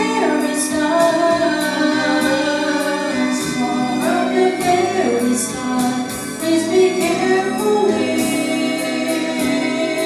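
A man and a woman singing a duet into handheld microphones over steady backing music.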